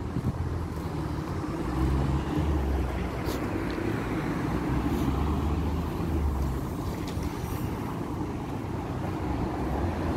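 Street traffic: motor vehicles running past, with a low engine rumble that comes and goes over a steady road noise.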